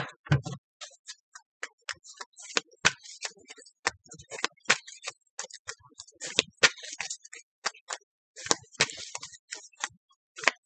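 A tarot deck being shuffled by hand: a string of light, sharp card clicks and slaps, a few a second, unevenly spaced.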